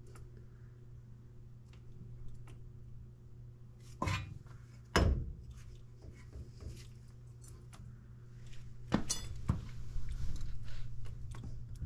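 Metallic clinks, clicks and knocks of hand work with a lever-action grease gun at a newly fitted upper ball joint, with two sharper knocks about four and five seconds in and a cluster of clicks near the end, over a steady low hum.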